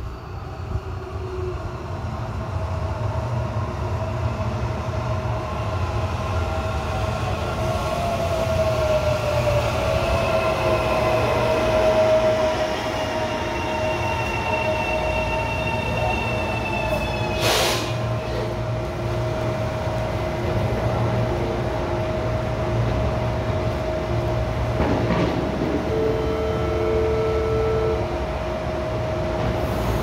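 CBTU Série 1000 electric multiple-unit train pulling into the station: its traction motors whine in falling tones as it brakes to a stop, with a short hiss of air about halfway through. It then stands at the platform with a steady hum from its equipment over a low rumble, and a two-second beep near the end.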